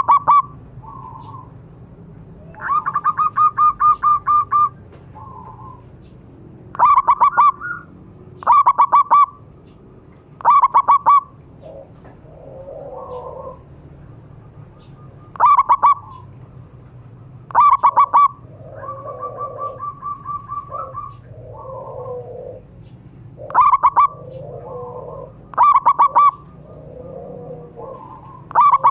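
Zebra dove singing, with about ten loud phrases of quick staccato coos repeated every couple of seconds, two of them drawn out into longer even trills. Softer, lower calls sound in the gaps between the phrases.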